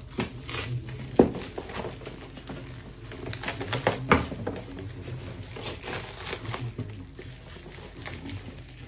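Plastic gift wrapping crinkling and crackling as it is torn and pulled off a cardboard box, with irregular rustles and two louder sharp cracks, about a second in and about four seconds in.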